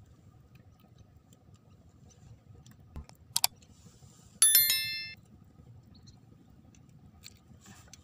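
Low background with a thump and a sharp click about three seconds in, then a brief bell-like jingle about halfway through, several ringing tones with a fast rattle that fade in under a second.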